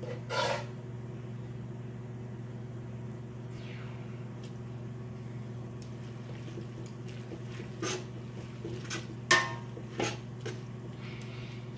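A utensil clinking and scraping against a steel pot as spaghetti and meat sauce are stirred together, a few sharp knocks with the loudest about nine seconds in, over a steady low hum.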